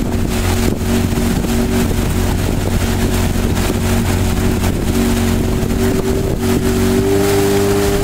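Outboard motor of a following launch running steadily at cruising speed, its pitch stepping up slightly near the end, with wind and water noise.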